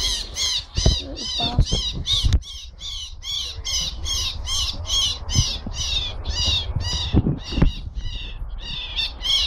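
A bird held down by a Eurasian sparrowhawk squawking harshly over and over, about three calls a second: the distress calls of caught prey. A few low thumps come in the first couple of seconds.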